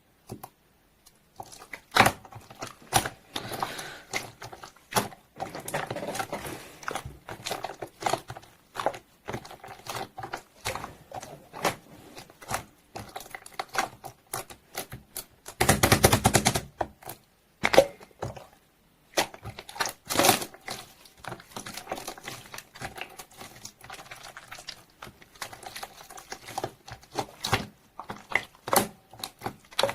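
Slime being squeezed, pressed and poked by hand: a long run of irregular sticky clicks and pops, with a dense second-long burst of crackling about halfway through.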